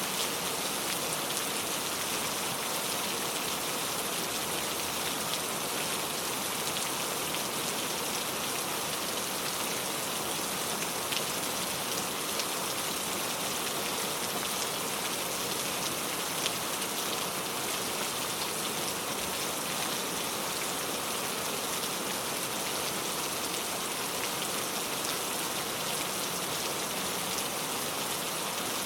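Steady rain falling, an even hiss of many drops with a few separate drop ticks scattered through it.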